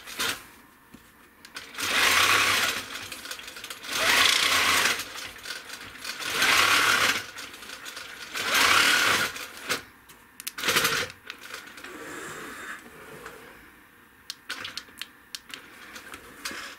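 Handi Quilter longarm quilting machine stitching in short bursts of about a second each, with pauses of about a second between them: five runs, the last one brief. A quieter stretch follows, with a few light clicks near the end.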